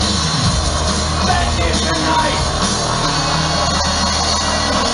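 Live industrial music from a band on stage, loud and dense throughout, with vocals over heavy bass.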